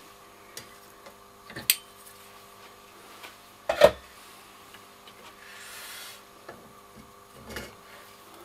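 Clicks and knocks of a tape reel being handled and fitted on a Ferrograph Series 4 tape recorder's deck, the loudest knock a little under four seconds in, over a faint steady hum.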